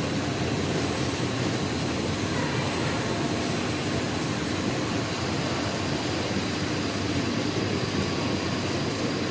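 Industrial wet cleaning machine for bicycle disc brake rotors running steadily: a constant mechanical noise of motors, brush roller and conveyor, with a faint steady high whine.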